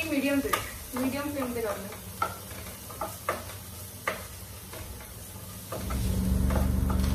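A wooden spatula stirs chopped onion, capsicum and tomato sizzling in ghee in a non-stick pan, with a few sharp scrapes against the pan. Near the end a loud, steady low hum starts up and keeps going.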